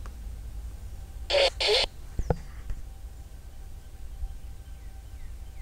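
A bird gives two short harsh calls back to back a little over a second in, followed by a thin falling whistle, over a low steady rumble.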